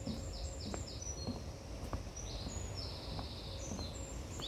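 A small songbird singing, hidden in the bushes: quick runs of short, high, clipped notes, with a few longer held notes in the middle.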